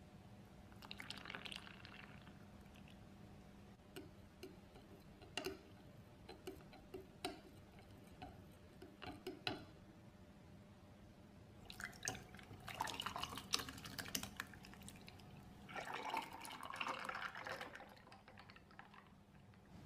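Liquid poured into a glass jug, then a spoon clinking against the glass several times as the drink is stirred, then the drink poured from the jug into glasses.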